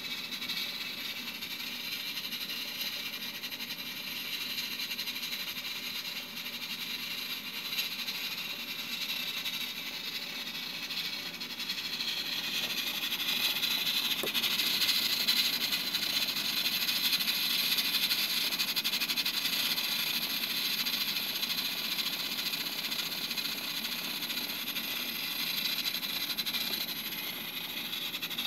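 Steam hissing steadily from the pressure valve of a Cuchen IH pressure rice cooker while it cooks sticky rice under pressure. The hiss grows louder about halfway through.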